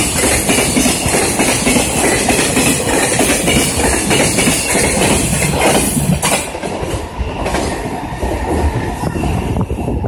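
Freight train's container flatcars rolling past close by, steel wheels running loudly over the rails; the last wagon passes about six seconds in and the sound drops away as the train moves off.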